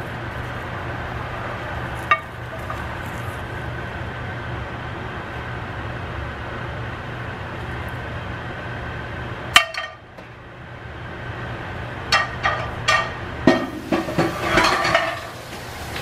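A spatula and skillet scraping and tapping scrambled eggs onto a glass plate: a few sharp clinks, one louder about halfway through, then a quick run of clinks and scraping near the end, over a steady low hum.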